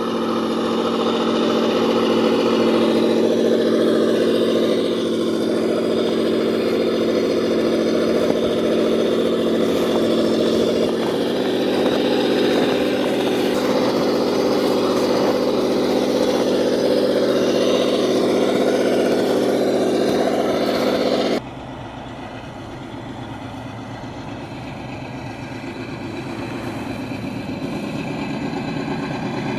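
Electric motor and gear drivetrain of an Absima Sherpa RC crawler running in a steady whine, with a slight change in pitch about a third of the way through. About two-thirds through it drops suddenly to a quieter whine that slowly grows louder.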